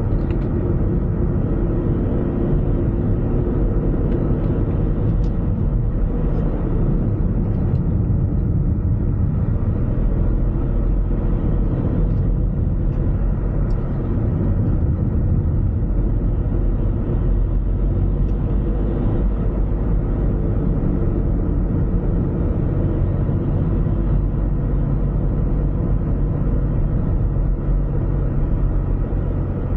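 Car driving at a steady pace: a constant low rumble of engine and tyre road noise, with a few faint ticks.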